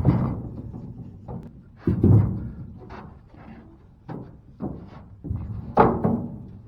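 Heavy red oak rounds thudding as they are handled and dropped into a trailer: a series of irregular dull knocks, the loudest about two seconds in and near the end.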